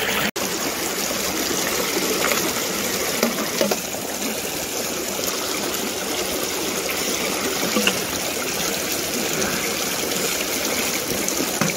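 Shallow creek water rushing steadily through and around a sluice box.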